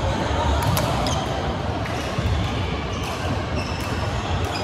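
Badminton rally: sharp racket hits on the shuttlecock, the clearest about a second in, and shoes on the wooden court, over the steady echoing din of a large sports hall.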